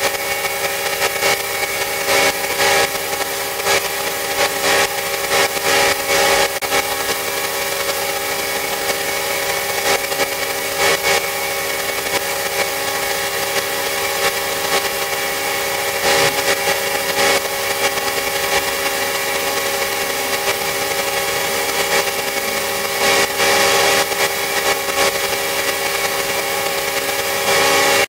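A power tool's motor running steadily with a constant whine, briefly louder in short surges now and then.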